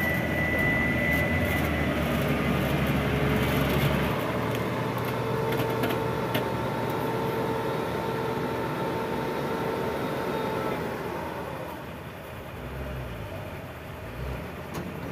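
Diesel engines of a dump truck and a crawler bulldozer at work, with steady high whining tones over the engine noise. The whining stops about eleven seconds in and the machinery gets quieter.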